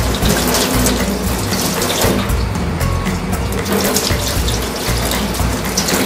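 Kitchen tap running into a stainless-steel sink, the water splashing as a small gutted fish is rinsed under it.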